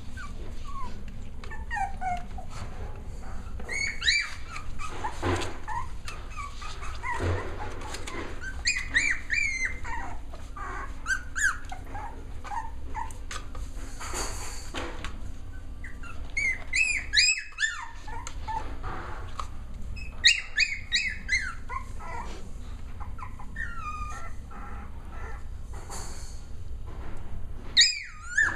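Six-week-old Cavalier King Charles Spaniel puppies whining and yipping, in clusters of short, high-pitched squeaky calls.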